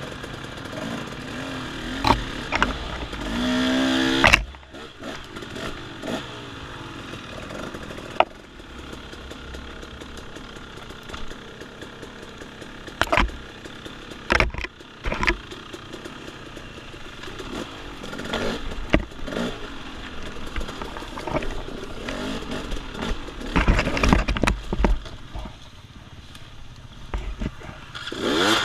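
Off-road dirt bike engine revving up and down as it is ridden along a woods trail. About three to four seconds in, a sharp rising rev cuts off suddenly, and scattered knocks and clatter run throughout.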